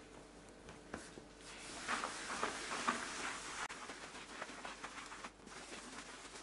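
Cloth being rubbed over a tiled tabletop in wiping strokes: a soft knock about a second in, then a few seconds of quiet rubbing that tapers off near the end.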